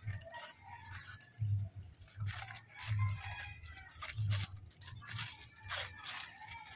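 Kitchen knife sawing and tearing through crumpled aluminium foil, which crinkles and crackles in repeated short bursts, with dull low thumps now and then.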